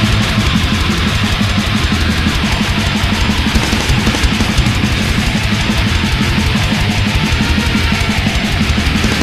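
Thrash/death metal music: loud, distorted guitars over fast, evenly driven drumming.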